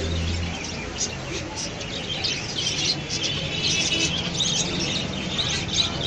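Many caged budgerigars chirping and chattering at once, a dense, continuous twittering.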